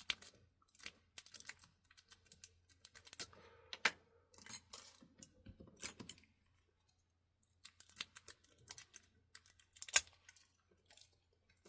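Small metallic clicks and taps of a padlock being raked and picked, the pick and tension tool working in the keyway. The clicks come irregularly, with a short pause a little past the middle and sharper clicks about four and ten seconds in.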